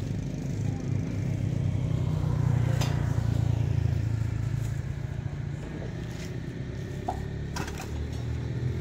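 A small engine running steadily with a low hum. A few light clicks and crackles come from oranges and a plastic bag being handled.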